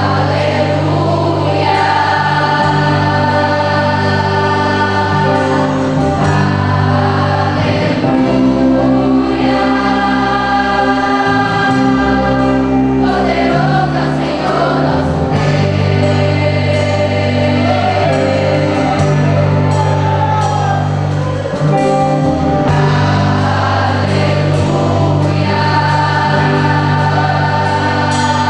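Gospel music: a choir singing over sustained instrumental accompaniment with a steady bass.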